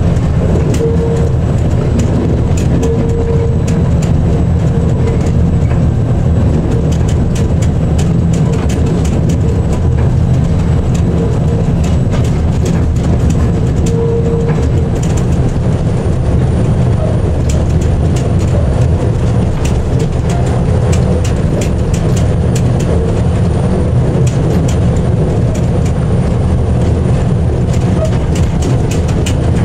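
DSA-class diesel shunting locomotive running steadily under way, heard from its cab, with a loud, steady low drone. Short sharp clicks from the wheels on the track come more and more often from about seven seconds in.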